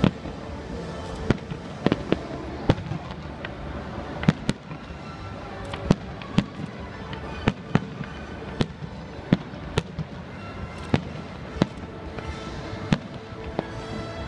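Fireworks display: aerial shells bursting in sharp bangs at irregular intervals, a little more than one a second, the loudest right at the start. Music plays steadily underneath.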